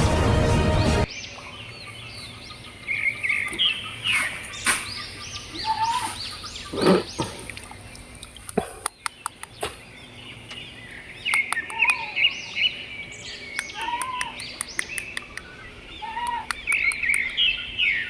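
Music cuts off about a second in, then birds chirp repeatedly, with several runs of quick, sharp clicks and a single thump around the middle.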